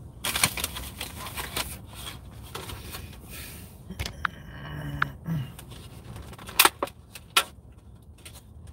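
Takeout food packaging being handled: a run of clicks, crackles and scrapes, with two sharp clicks near the end.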